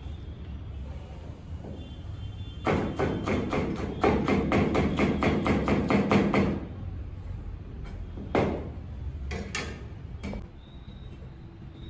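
Chef's knife chopping a green bell pepper on a plastic cutting board: a fast, even run of knocks about six a second for some four seconds, then a few single knocks. A steady low hum lies underneath.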